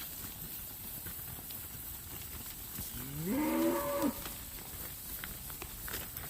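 One of the red cattle mooing once, about three seconds in. It is a single call of about a second whose pitch rises and then falls away at the end.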